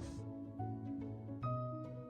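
Background music: a slow melody of separate held notes over a low bass line.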